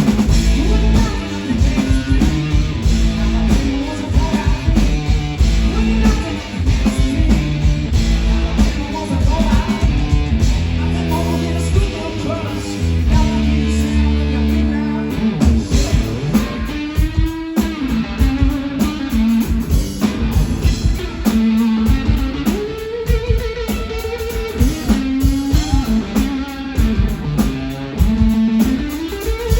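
Live rock band playing: loud electric guitar riffs over a drum kit, with the guitar sliding and bending notes about halfway through.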